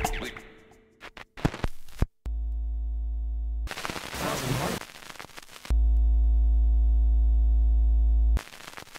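Soundtrack music fading out, then a few clicks, and a steady low electronic buzzing tone that stops abruptly. After a brief rushing noise, a louder buzzing tone holds for nearly three seconds and cuts off suddenly.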